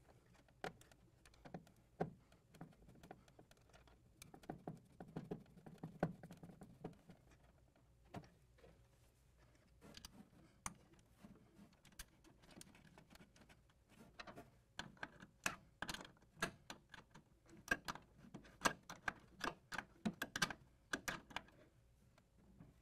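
Faint, irregular clicks and taps of hand work with a Phillips screwdriver on small metal parts, a ground strap's ring terminal and its screw, with a denser run of clicks in the second half.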